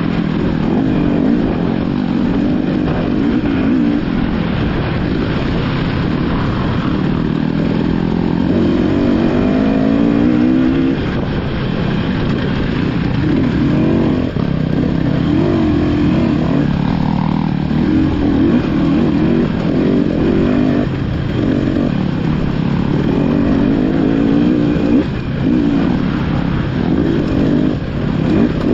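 Off-road dirt bike engine revving up and down on a trail ride, its pitch rising and falling with the throttle. Other dirt bikes run just ahead.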